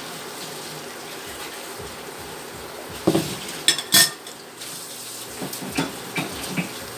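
Soy-sauce marinade poured from a glass bowl into a hot frying pan of onion and garlic, with a steady hiss. About three seconds in come a few sharp clinks of glass on the pan. After that a wooden spatula stirs the sauce, tapping and scraping against the pan.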